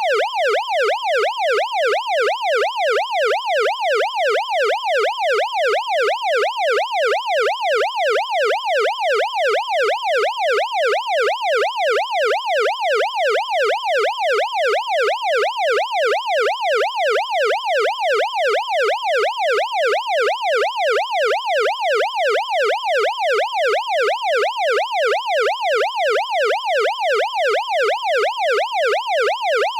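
Electronic police siren in its fast yelp pattern, its pitch rising and falling evenly a little over twice a second, loud and unchanging.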